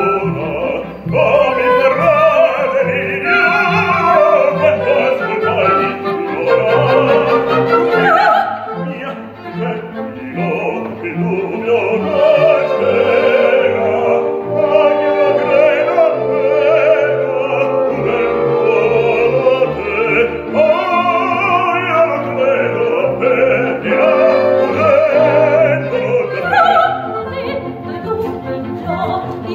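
Operatic duet for soprano and baritone, sung in Italian with vibrato over an orchestra with bowed strings.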